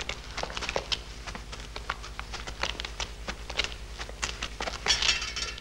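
Feet shuffling and scuffing on a floor as fighters circle, heard as scattered light taps and scrapes over a steady low hum, with a louder rustling scuff about five seconds in.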